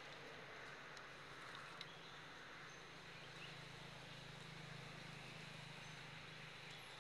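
Faint forest ambience: a steady hiss of insects with a few short, high chirps and ticks, and a faint low hum that comes in about three seconds in.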